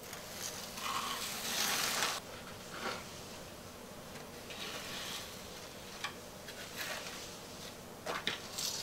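Small plastic spreader scraping thinset mortar along a narrow backsplash channel in short strokes. The longest stroke comes at the start, another a few seconds later, and several brief scrapes follow.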